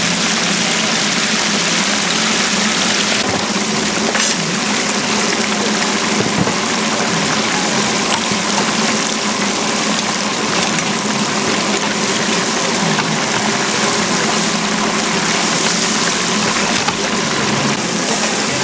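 A machine running steadily: a continuous hum under an even rushing hiss.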